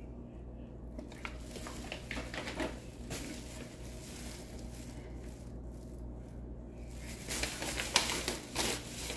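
Plastic product packaging rustling and crinkling as it is handled, in irregular crackles that get busier and louder over the last couple of seconds.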